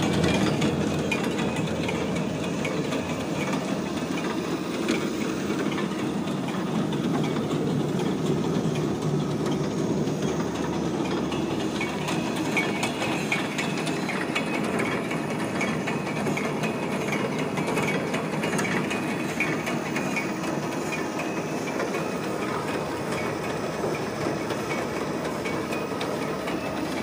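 Onion leaf cutting machine running, its electric motor turning the steel roller conveyor: a steady mechanical running noise with a fine, even clatter that holds level throughout.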